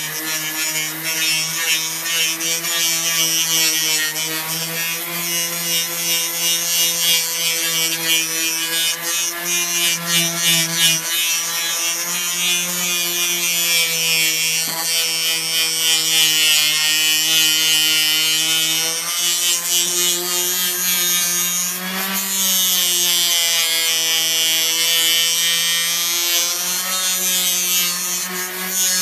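Craftsman 5-inch, 2.4-amp random orbit sander (model 11217) running under load against a surface, a steady motor whine with the hiss of the abrasive disc. Its pitch wavers and rises a little about two-thirds through and again near the end, which fits the owner's complaint that it speeds up as soon as the pad meets less resistance.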